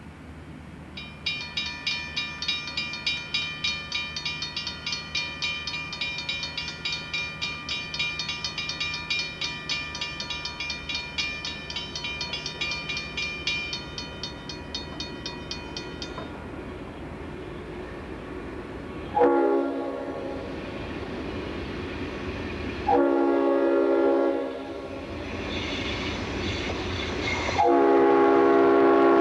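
Grade-crossing warning bell ringing rapidly, about three strokes a second, and stopping about halfway through once the gates are down. Then the approaching CSX locomotive's air horn sounds for the crossing: three loud blasts, the last the longest.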